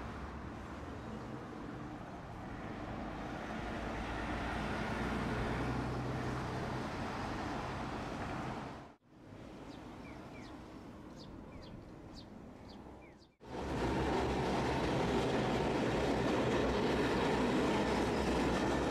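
Tosaden streetcar running along street track, its rumble growing as it approaches, then cutting off. A quieter stretch follows with a few short high chirps. About 13 seconds in, a louder, steady rumble starts as another tram passes close by.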